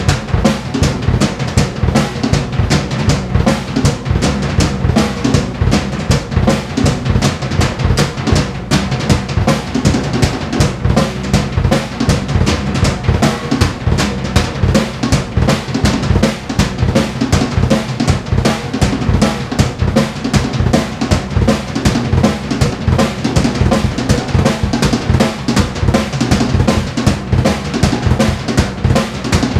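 Acoustic drum kit played without a break in a busy groove: bass drum, snare and cymbals struck in quick succession.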